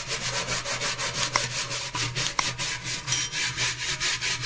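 Stainless steel kitchen sink being scrubbed with a cleaning paste of detergent and baking soda, in quick even back-and-forth strokes, about five a second. The scrubbing is working at hard-water limescale, which is very hard and comes off only slowly.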